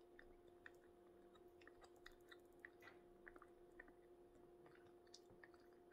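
Near silence: soft, scattered mouth clicks of quiet chewing over a faint steady hum.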